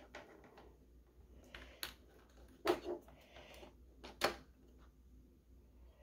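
A USB-C cable's plug being fitted into a port on an aluminium USB-C docking station: three short sharp clicks and a few fainter taps from the plug and cable being handled against the dock.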